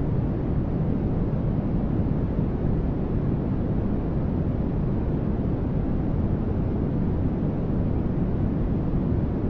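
Continuous generated sleep noise, a steady deep static hiss heavier in the lows than the highs, with no changes or separate events.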